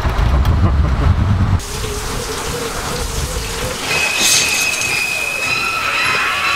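Forklift engine running with a heavy low rumble, heard from the driver's seat. About a second and a half in it cuts off sharply to a steady hiss, and a high steady whine joins past the middle.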